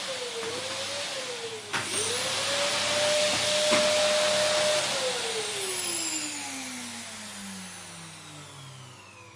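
Vacuum cleaner motor running with a steady hiss and whine. The whine dips briefly twice, with a sharp click near each dip and another click later. About five seconds in, the motor winds down, its whine falling steadily as the noise fades away.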